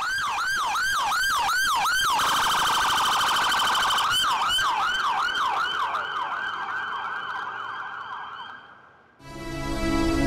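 Police car siren on a fast yelp, about three sweeps a second, switching to a rapid warble for about two seconds before going back to the yelp. The siren fades out, and music comes in near the end.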